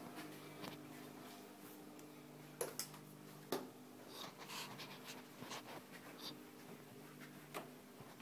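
Faint steady low hum with a few sharp knocks and soft rustles; the hum stops near the end.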